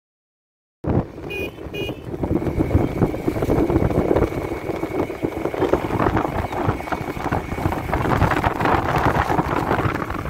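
A moving vehicle's engine and road noise, heard from on board, starting about a second in, with two short horn toots just after it begins.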